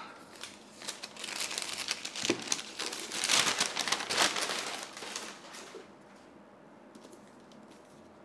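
Brown wrapping paper crinkling and rustling as a book is unwrapped, loudest in the middle and dying away about six seconds in.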